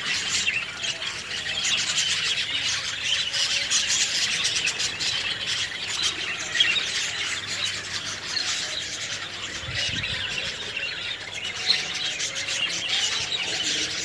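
A roosting colony of egrets and cormorants calling together: a dense, continuous chattering of overlapping high-pitched squawks and squeals with no break.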